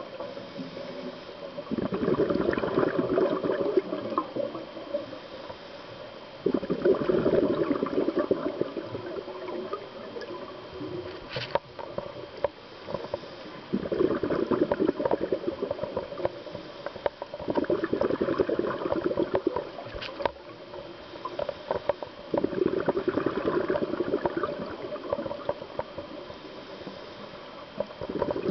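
Scuba diver breathing through a regulator underwater: five loud bursts of bubbling exhaust a few seconds apart, with quieter stretches between. Two sharp clicks cut through, one near the middle and one about two-thirds of the way in.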